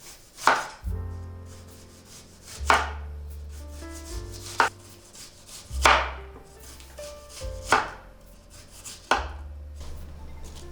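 Six sharp knife cuts on a cutting board, about one every second and a half to two seconds, over background music with low held notes.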